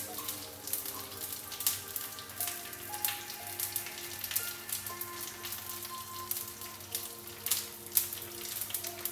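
Dried anchovies (ikan bilis) frying in hot oil in a pan, sizzling with irregular sharp crackles and pops, under soft background music.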